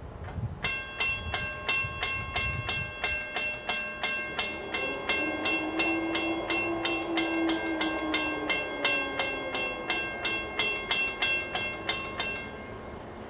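Railroad grade-crossing warning bell ringing, about three strikes a second, stopping near the end. Under it in the middle, a lower drawn-out tone swells and fades.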